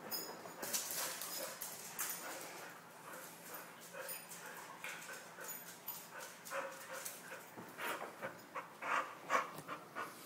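A dog whimpering and panting while it plays at fetching its toy, with short scuffling clicks throughout and a few louder short sounds about eight seconds in.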